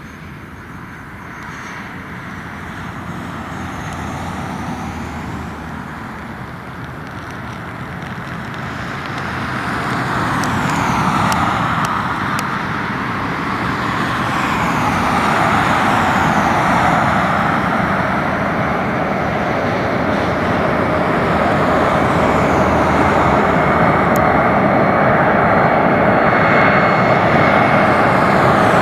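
The four turbofan engines (GE CF6-50E2) of a Boeing E-4B, a modified 747-200, running on final approach. The roar grows steadily louder as the jet closes in, with a shifting, whooshing sweep in the upper range. A steady high whine comes in over the second half.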